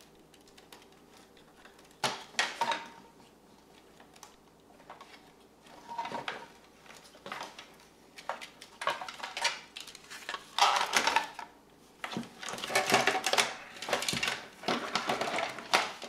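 Hard plastic housing parts and wiring of a Saeco Talea Ring Plus espresso machine being handled and pulled apart: irregular clicks, knocks and scrapes, starting about two seconds in and getting busier and louder in the second half.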